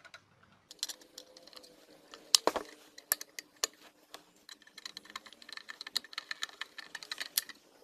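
Small plastic clicks and taps as the rear cover of an electric iron is fitted back on, with one sharper click about two and a half seconds in. Rapid ticking follows from about halfway, as a screwdriver drives the cover's screw into the plastic.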